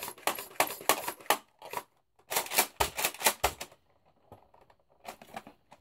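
Plastic clicks and rattles from a Nerf blaster and its attachments being handled: two quick runs of clicks, then a few fainter ones near the end.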